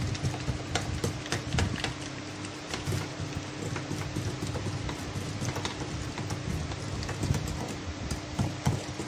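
Wire balloon whisk beating butter and icing sugar by hand in a glass bowl, creaming the mixture until fluffy. The wires make a fast, irregular patter of clicks against the glass.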